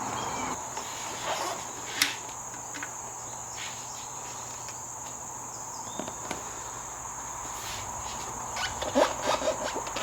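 Motorcycle seat being taken off and refitted: a sharp click about two seconds in, a few small clicks, then a cluster of knocks and rattles near the end as the seat is pushed back into place. A steady high insect chirr runs underneath.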